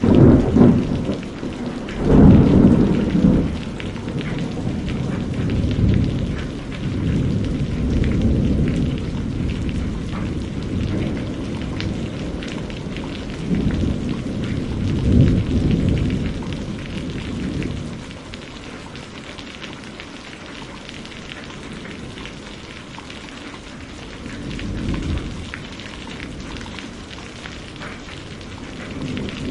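Thunderstorm: steady heavy rain with rolling thunder. Strong rumbles come at the very start and about two seconds in, more around six to nine seconds and about fifteen seconds in, and a fainter one near twenty-five seconds.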